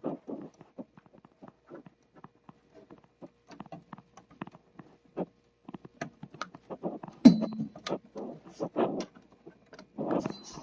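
Scattered small clicks, taps and knocks of hands working on computer hardware, with one sharper, louder click about seven seconds in, over a faint steady hum.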